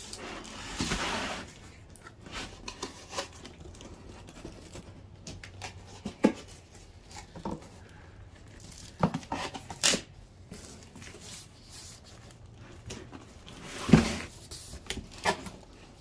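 A cardboard box being pulled off a white foam packing insert and handled: rustling and scraping cardboard with scattered knocks. The loudest sharp knock comes near the end.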